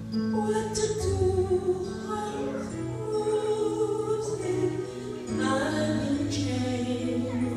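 A woman singing into a handheld microphone over a recorded instrumental backing track with steady bass notes.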